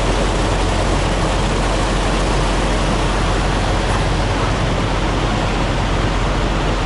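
Steady drone and hiss of idling diesel semi-truck engines, with no change in level.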